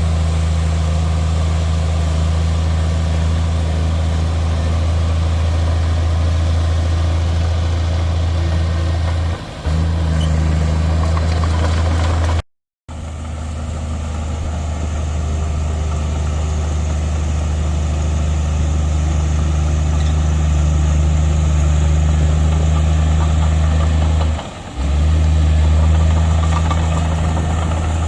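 Heavy diesel engine of earthmoving equipment running steadily at constant speed, a deep drone that dips briefly twice and cuts out completely for a moment near the middle.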